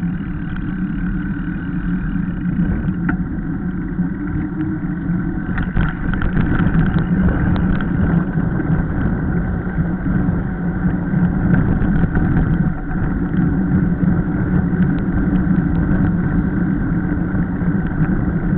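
Steady rush of wind over the microphone and mountain-bike tyres rolling on asphalt during a fast downhill descent, with a few light rattles about six to eight seconds in.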